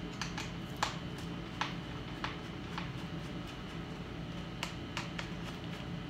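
About nine sharp, irregular clicks and taps from a screwdriver and small parts being handled inside an opened iMac 21.5-inch (Late 2013), the loudest about a second in, over a steady low hum.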